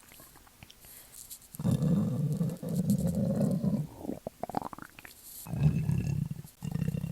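A person's stomach growling: quiet for the first second and a half, then long low rumbles. Short rising squeaky notes come in about four and a half seconds in, followed by more rumbling.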